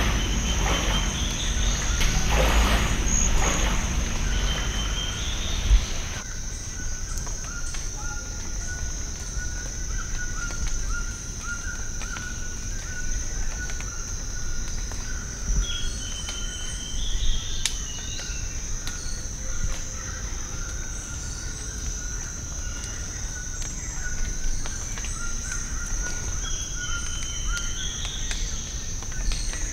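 Tropical rainforest ambience by a river: a steady high-pitched insect drone with a lower, steadier insect trill beneath it, and birds calling now and then in short rising whistled phrases. For the first six seconds a louder rushing noise sits under it, then cuts off abruptly.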